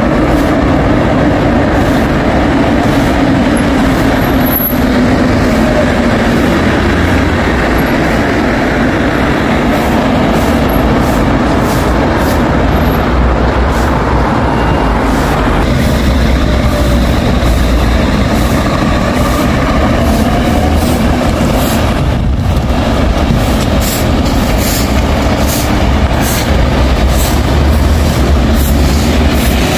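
Busan Metro subway train running: a steady, loud rumble of wheels and running gear, with faint whining tones that slide slowly in pitch.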